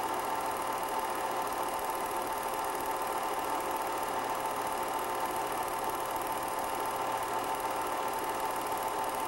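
Steady mechanical whirr with a constant hum, unchanging through the picture's cuts: the running noise of a film projector playing silent footage.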